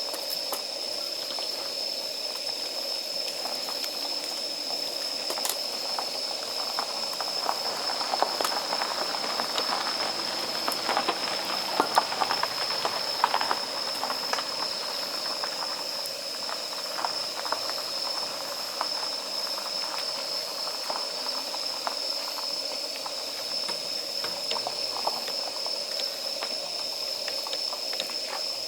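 Wood fire of damp firewood crackling and popping over a steady hiss, with the crackles thickest for a few seconds near the middle.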